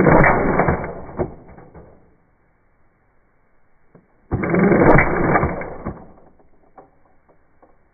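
Well R4 CQB airsoft electric gun (AEG) firing on full auto in two bursts: the first already going at the start and trailing off after about a second and a half, the second starting about four seconds in and lasting about a second and a half.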